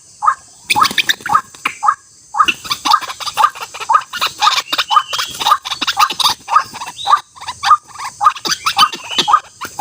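White-breasted waterhen (ruak-ruak) calling, a rapid run of harsh, croaking notes repeated several times a second, with a short pause about two seconds in.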